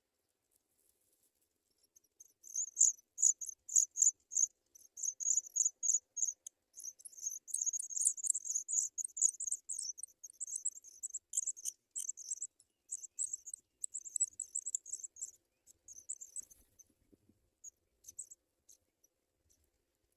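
Nestling birds begging: rapid, very high-pitched cheeping that starts about two seconds in, keeps up densely for around fourteen seconds, then thins to a few scattered chips near the end.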